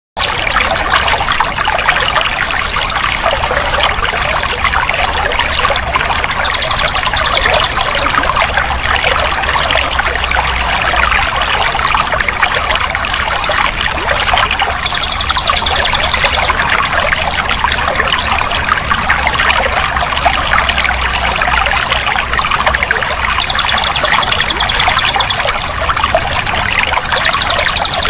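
Flowing water running and trickling steadily, with a short high buzzing trill breaking in four times, a second or two each.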